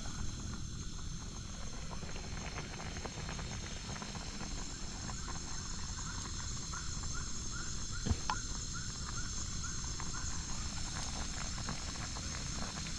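Night insects droning steadily in several high pitches. Through the middle, a short chirping animal call repeats about three times a second for a few seconds, with a few light knocks.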